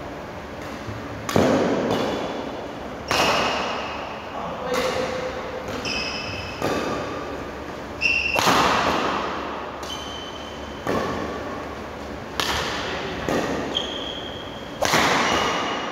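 Badminton rally: about ten racket-on-shuttlecock hits, one roughly every second and a half, each a sharp crack that echoes in a large hall. Short high squeaks of court shoes on the wooden floor come between the shots.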